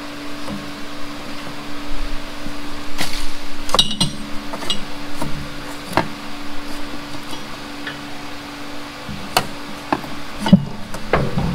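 Scattered sharp knocks and clicks as a heat-shield template is handled and pressed into place against the tractor's panels beside the pedals, over a steady low hum.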